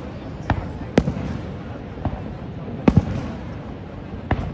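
Aerial fireworks shells bursting: about five sharp bangs, the loudest about one second and three seconds in, over a steady background din.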